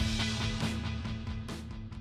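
Background music with a steady beat, fading out.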